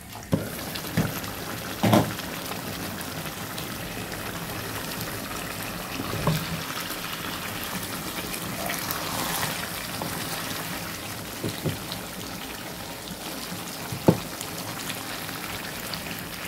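Water poured from a jug into a pot of simmering fish curry, then a steady hiss of curry cooking on the stove. A wooden spoon stirs and knocks against the pot a few times.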